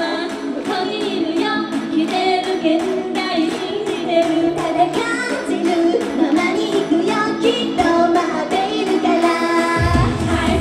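Live idol-pop song: a female voice sings a melody over a backing track through the venue's sound system. The bass drops out for most of the passage and comes back in heavily just before the end.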